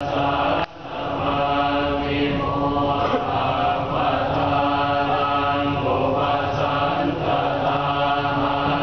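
Thai Buddhist monks chanting Pali verses together in unison: long, level notes on a steady pitch, broken by short pauses every second or so. A brief sharp dip in level comes under a second in.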